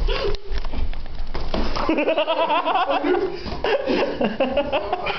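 People laughing hard, with a few sharp knocks in the first second and a half.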